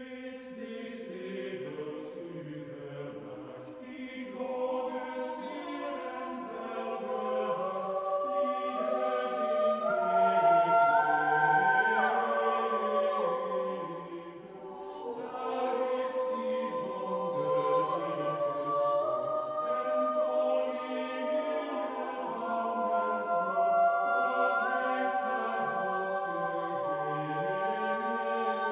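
Vocal ensemble singing a polyphonic setting of a medieval Middle Dutch song to Mary, several voices holding long chords that move step by step. The singing swells towards the middle, thins at a phrase break about fourteen seconds in, then builds again.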